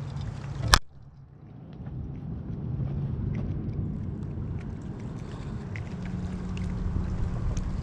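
Wind buffeting the microphone as a low, unsteady rumble, with one sharp knock about a second in.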